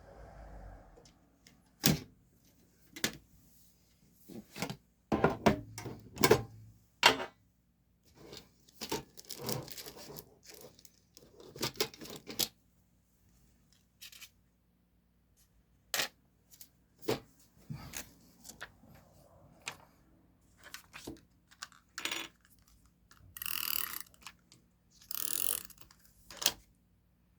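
Stationery being handled for journal decorating: small items clattering and tapping as they are picked up and set down, with paper rustling and two longer tearing or peeling sounds near the end.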